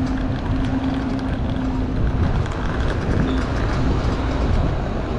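City street traffic noise: a steady low engine hum over a continuous rumble.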